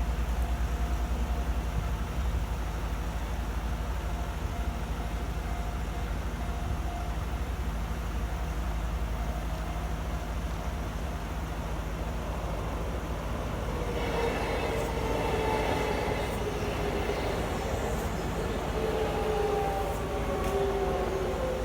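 Kintetsu Nagano Line electric train running with a steady low rumble. From about 14 seconds in, its motor whine comes in as several tones that fall in pitch as the train slows.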